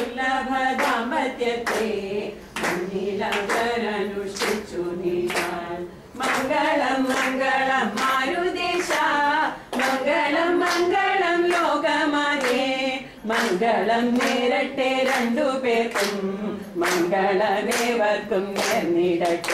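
A group of people singing a song together without instruments, clapping their hands on a steady beat.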